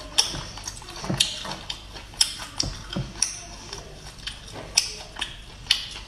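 Close-up eating sounds of sea snails: sharp wet sucking pops and lip smacks about once a second, with soft chewing between.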